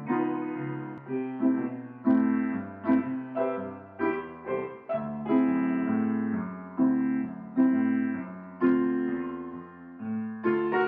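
Piano music of struck chords, each sounding and then fading, a new one about every second.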